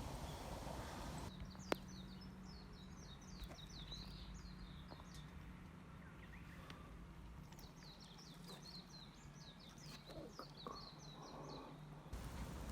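A small songbird singing two phrases of quick, repeated high chirping notes over a low steady outdoor hum. A single sharp click comes about two seconds in.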